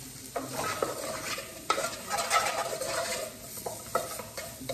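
Wooden spoon stirring diced onion and calabresa sausage sizzling in oil in a metal pot, with a few sharp knocks and scrapes of the spoon against the pot, busiest in the middle.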